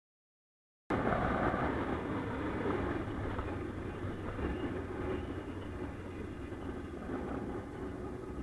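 1999 Honda CB500S parallel-twin engine running steadily on the move, mixed with wind and road noise on a helmet-mounted microphone; it starts abruptly about a second in.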